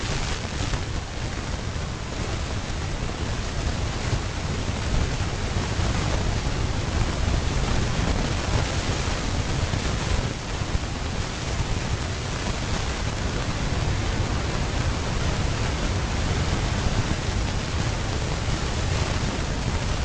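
Steady wind noise on the microphone: an even rushing hiss over a heavy low rumble, with no distinct calls.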